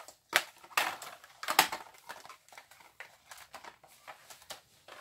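Clear hard-plastic toy race-track tubes being pushed together and handled: a few sharp scraping, crunching strokes in the first two seconds, then lighter plastic clicks and ticks.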